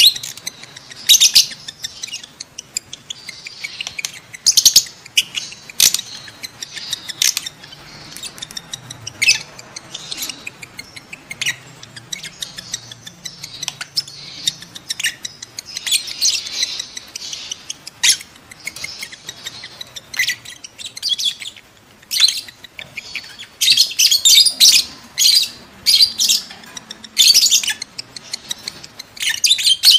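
Lovebirds chattering in repeated bursts of shrill, high-pitched chirps and squeaks, busiest near the end. These are the excited calls of lovebirds in breeding condition (birahi).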